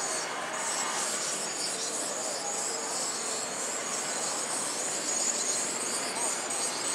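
Steady outdoor background noise: an even hiss with a high, continuous buzz and no single sound standing out.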